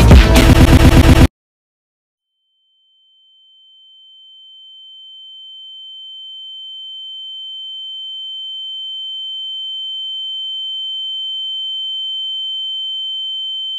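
Music with a steady beat cuts off suddenly about a second in. After a second of silence, a single steady high-pitched electronic tone fades in slowly and holds, growing louder toward the end.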